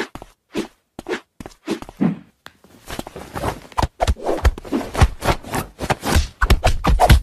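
A hand patting and tussling with a kitten on bedding: fabric rustling and soft thumps. It comes in short separate bursts at first and gets busier from about three seconds in.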